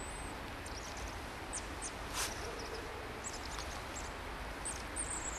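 European robin singing faintly: scattered short, high, thin notes over a steady background hiss. A single click about two seconds in.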